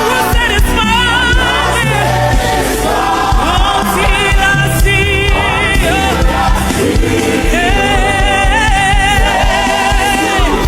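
Live gospel worship music: a choir singing long held notes with vibrato over band accompaniment, loud and steady throughout.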